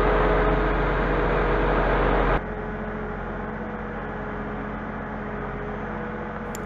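Scania truck's engine and Palfinger loader crane hydraulics running steadily while the crane holds a load, with a steady whine. The sound drops suddenly to a quieter level about two and a half seconds in.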